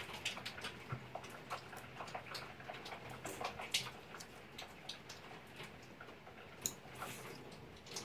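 Craft knife cutting a paper pattern strip on a cutting mat: faint, irregular scratchy ticks, with the paper handled and turned partway through.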